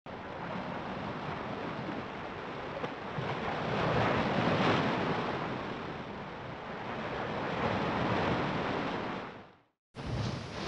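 Rushing-water sound effect for an animated logo sequence, a steady wash that swells to its loudest in the middle and fades away, followed after a short gap by a brief second rush of water.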